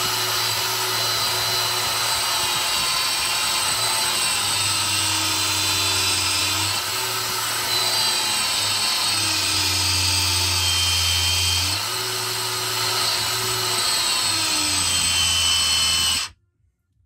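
Cordless 20 V brushless angle grinder running under load from a wooden block pressed against its spinning flange. Its pitch sags and recovers several times, then it cuts out abruptly near the end as the battery pack's protection trips under the voltage sag.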